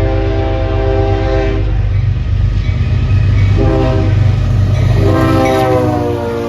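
CSX freight locomotive's multi-chime air horn sounding for a grade crossing: a long blast ending about two seconds in, a short blast, then a long blast from about five seconds in whose pitch slides down a little as the train passes. A heavy diesel rumble runs underneath.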